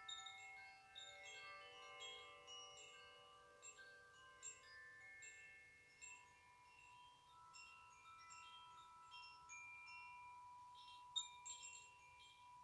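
Faint, random ringing of two hand-held cylindrical chimes being swirled: scattered strikes at several pitches that overlap and sustain, with one tone from about halfway through holding on to the end.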